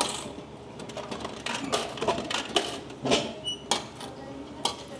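Irregular sharp clicks and light taps, at times several a second, with a brief high chirp about three and a half seconds in.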